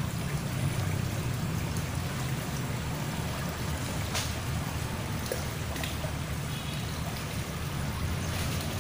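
Muddy, rain-swollen stream water rushing and churning in a steady, even flow. A single sharp click comes about four seconds in.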